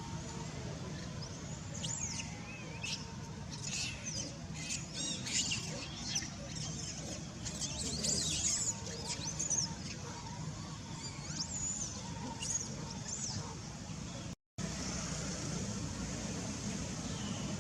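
Many short, high-pitched squeaks and chirping calls that bend up and down in pitch, coming thick for most of the stretch and thinning out near the end. Beneath them runs a steady low background rumble.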